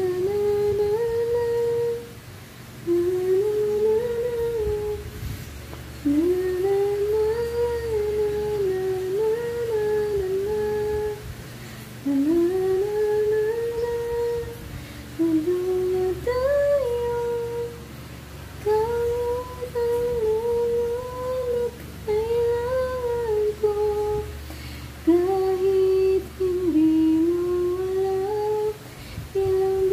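A woman humming a slow melody without words, in phrases of two to three seconds each, with short breaks between them.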